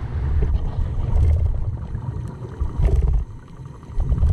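Low underwater rumble of water moving around a swimming spearfisher's camera. It drops away briefly a little past three seconds in, just after a faint tap.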